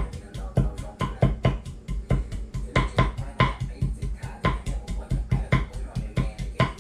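Kitchen knife finely chopping galangal on a thick wooden cutting board: a steady run of quick knocks, about five a second, each with a dull thud from the board.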